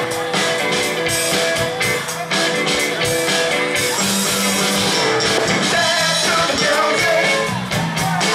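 Live rock band playing a song, with drums and sustained pitched instruments.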